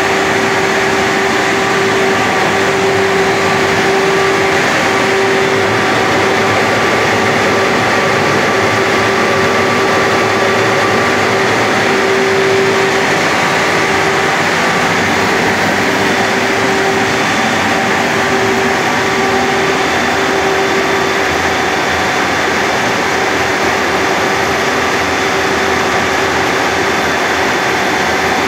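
Grain drier running while drying wheat: a loud, steady fan rush with a steady mid-pitched hum on top.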